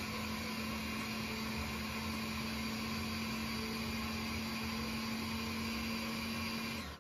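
Ninja high-powered blender running at full speed with a steady whine, churning butter in cold water to rinse out the leftover buttermilk. It switches off just before the end.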